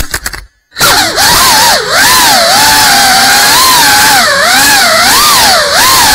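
Brushless motors and propellers of a GEPRC CineLog 35 cinewhoop drone whining loudly, the pitch rising and falling constantly with throttle. The sound cuts out briefly just after the start, then resumes.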